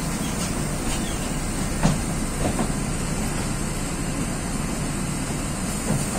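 Tezeller TezAuto LF1200 city bus heard from inside the passenger cabin: a steady engine rumble as the bus creeps through traffic, with a few cabin rattles and one sharper knock about two seconds in.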